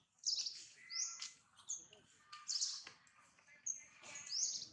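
Small birds chirping: short, high, sweeping chirps about once a second, with fainter lower calls between.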